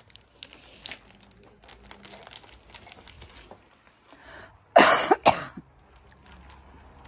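A woman coughs twice in quick succession about five seconds in, loud and close to the microphone. Faint rustling and clicks come before.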